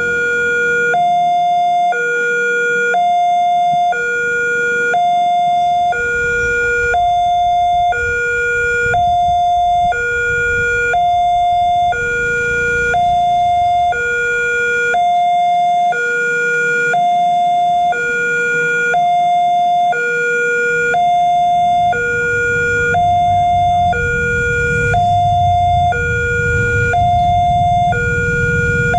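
Railway level-crossing warning alarm sounding two electronic tones in turn, a lower one and a higher one, each held about a second, over and over. It signals that a train is approaching and the barrier is closing.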